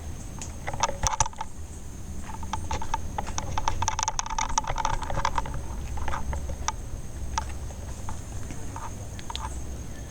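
Footsteps crunching and rustling through dry leaves and undergrowth, irregular crackling clicks that grow densest around the middle.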